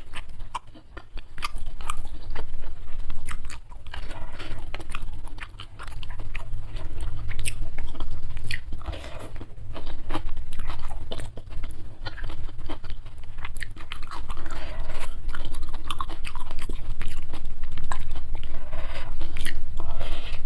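Close-miked eating: a person biting and chewing crunchy food, with many sharp crunches throughout.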